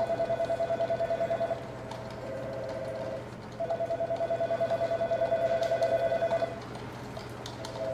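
Electronic office telephone ringing with a fast warbling trill, in rings of a couple of seconds separated by short pauses. A fainter, steadier tone sounds in the first pause.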